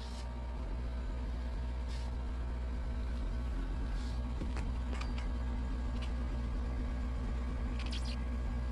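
Air conditioner outdoor unit running: a steady low hum of compressor and fan, with a click now and then.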